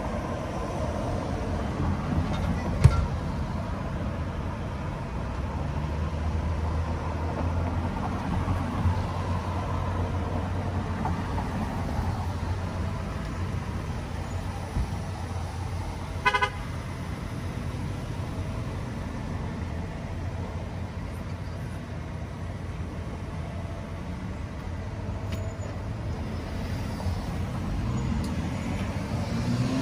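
Street traffic: cars passing, with a short car-horn toot about halfway through and a car pulling away with rising engine pitch near the end. A single sharp knock about three seconds in.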